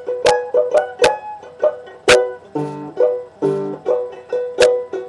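Banjo being picked: a run of quick, sharp plucked notes repeating around one pitch, with a couple of lower, fuller notes about halfway through.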